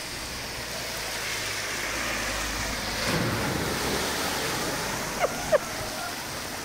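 Heavy downpour on a flooded street, with a car driving through the standing water, its rushing splash swelling to a peak about three seconds in. Two short high squeaks a little after five seconds.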